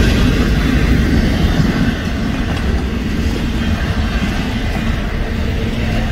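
Florida East Coast Railway intermodal freight train passing close by, its container well cars and trailer flatcars rolling over the rails with a loud, steady rumble.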